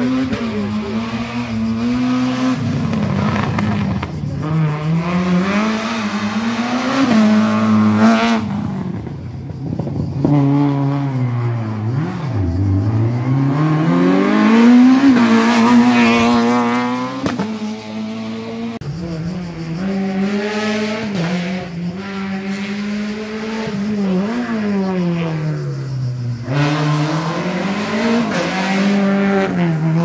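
Small hatchback competition car engines revving hard and lifting off again and again through a slalom course, the pitch climbing and falling every couple of seconds.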